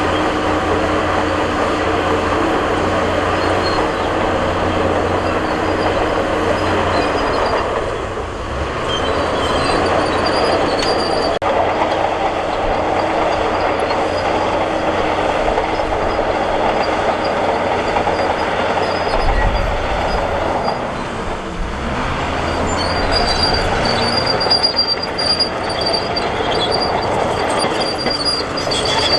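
Crawler bulldozer working: a diesel engine running under load, with its steel tracks clanking and squealing. The noise eases twice, and a thin high squeal comes in over the last few seconds.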